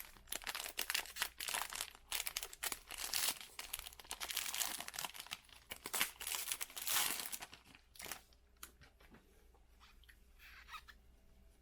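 Trading-card pack wrapper being torn open and crinkled, in dense crackling bursts for about seven seconds, then a few soft clicks and rustles.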